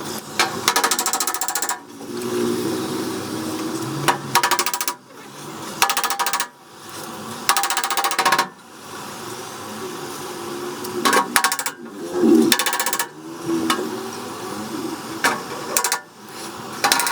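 Hammer tapping on car body sheet metal in quick runs of many light taps, with short pauses between runs: panel dents being knocked down and smoothed during bodywork repair.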